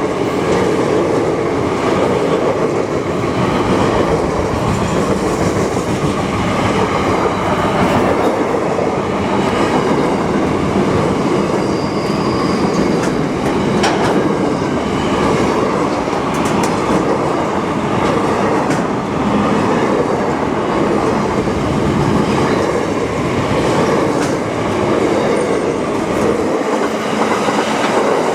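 A train rolling past close by: a steady, loud rumble of wheels on rail with occasional clicks.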